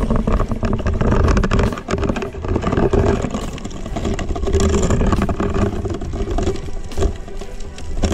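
Underwater rumbling with rapid clicks and crackles as a freshly speared fish thrashes on a speargun shaft against the reef.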